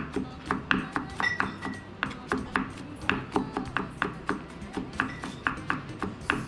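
Chef's knife chopping garlic cloves on a wooden cutting board: a steady run of quick knocks, about five a second.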